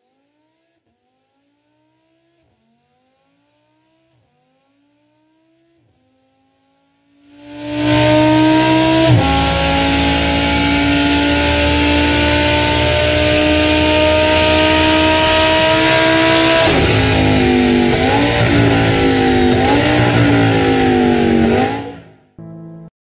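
Sports car engine accelerating through the gears, faint at first, its pitch rising and dropping back at each shift. It then becomes loud, running at high revs with a strong rushing noise, the pitch climbing slowly. Near the end the revs swing up and down several times before cutting off suddenly.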